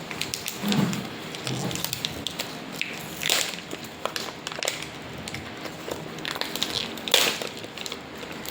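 Gift wrapping being torn and crumpled by hand as a present is opened: a run of small crackles, with two louder rips, about three seconds in and again about seven seconds in.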